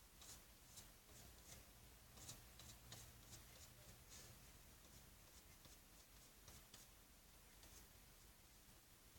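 Faint near-silence with the soft, scratchy strokes of a paintbrush working acrylic paint into the painting surface: quick short strokes, two or three a second at first, growing sparser in the second half.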